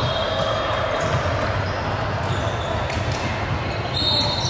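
Basketball game sounds in a gym: the ball bouncing on the court amid steady voices of players and spectators, with a brief high tone near the end.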